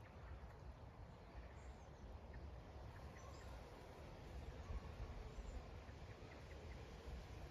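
Faint buzzing of honeybees foraging on phacelia flowers, with a few brief, faint bird chirps over a low background rumble.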